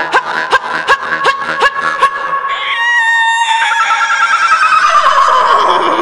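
Electronic background music: a rhythmic clicking beat with short pitched chirps for about two seconds, then a warbling held tone, then a long falling, wavering synth sweep that settles on a steady note.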